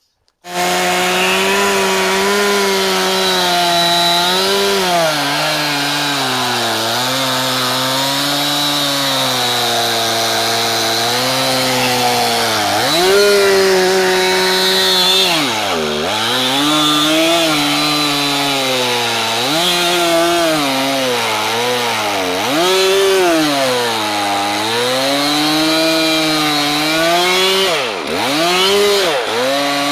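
Gas chainsaw running at high revs while cutting through a cherry log. The engine note sags repeatedly as the chain bogs down in the cut, then climbs back, with two deep dips where it nearly slows right down.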